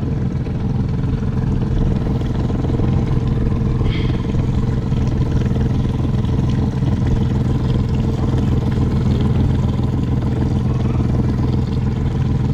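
Small boat's outboard motor running steadily at slow cruising speed, heard from aboard: an even engine hum that does not rise or fall.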